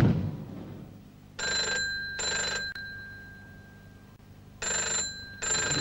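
Rotary desk telephone's bell ringing in a double-ring pattern: two short rings, a pause of about two seconds, then two more. It opens with a brief loud thud that fades away.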